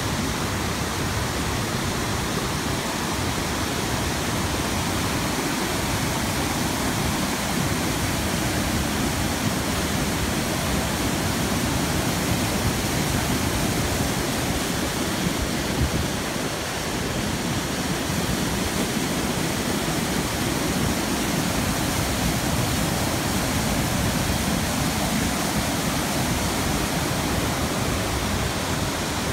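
Gorge stream rushing over rocks and pouring down a small waterfall into a pool: a steady, unbroken rush of water.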